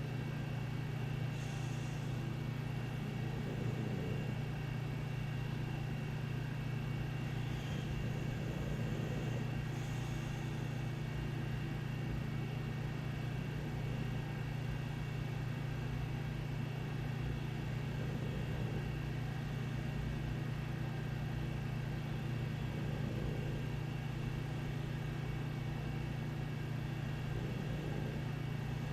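Steady low mechanical hum of a household appliance or room machinery, unbroken and even in level, with faint thin steady tones above it.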